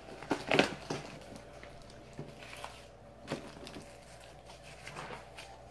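A few light rustles and knocks from a cardboard box with foam packing being handled, the loudest about half a second in.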